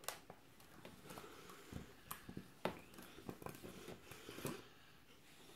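Faint handling sounds: scattered soft clicks and rustles as hands crumple and work a paper napkin. No motor is running.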